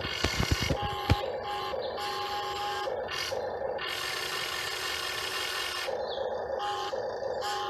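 Electric motors and metal gearboxes of a Top Race RC excavator whirring in short starts and stops as it is worked, with a few sharp clicks in the first second.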